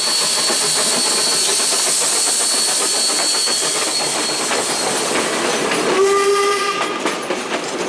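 Steam locomotive letting off a loud, steady hiss of steam, with wheels clicking on the rails and a short whistle blast about six seconds in.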